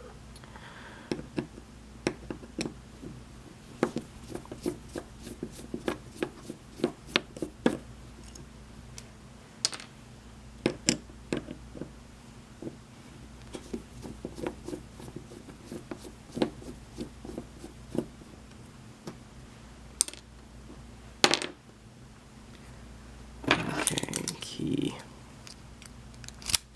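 Irregular small metallic clicks, taps and knocks of a Schlage pin-tumbler lock cylinder being worked with its key and taken apart for gutting, with a louder rattle near the end.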